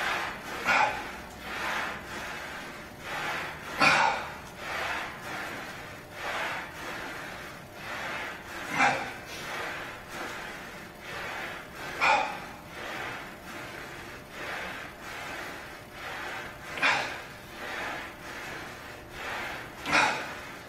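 A man breathing hard and rhythmically through a set of barbell bent-over rows, with a forceful breath about once a second and several sharper, louder exhales among them.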